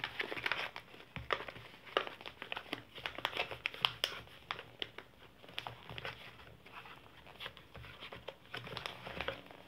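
A paper bag crinkling and rustling as it is opened out and its top folded over by hand: irregular crackles, busiest in the first half and sparser later.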